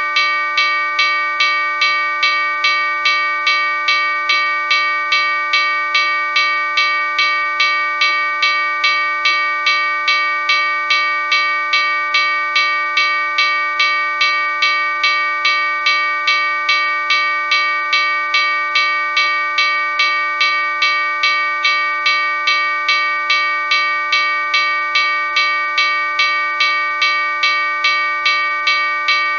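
Railroad crossing bell ringing continuously, struck at an even rate of about two strikes a second, each strike adding to a steady metallic ring.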